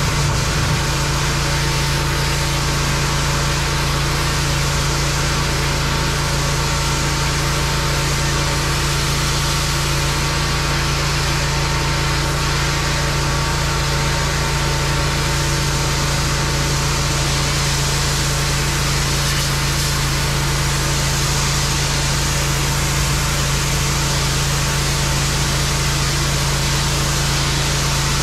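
Pressure washer's gas engine running at a steady speed, an even hum with a steady hiss over it.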